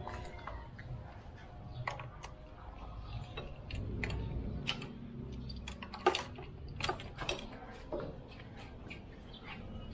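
Scattered sharp clinks and knocks of small hard objects being handled, about a dozen at uneven intervals, the loudest about six seconds in.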